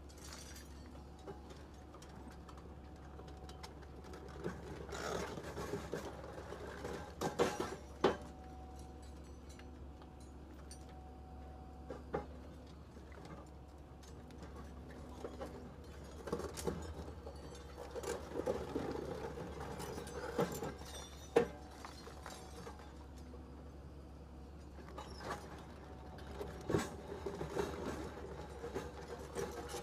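Excavator-mounted hydraulic concrete crusher jaws biting into reinforced concrete rubble. Several bursts of cracking, crunching concrete and clinking broken pieces sound over a steady low hum of the machine.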